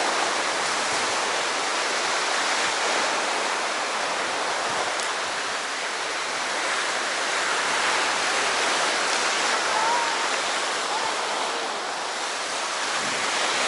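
Steady wash of sea surf on the shore: a continuous, even rush with no separate strokes.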